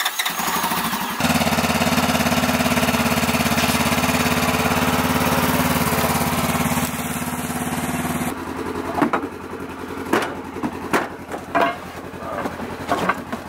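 A Polaris RZR 900 side-by-side's twin-cylinder engine catches about a second in and idles steadily. After about eight seconds the idle gives way to scattered knocks and clunks as a toilet is handled at the vehicle.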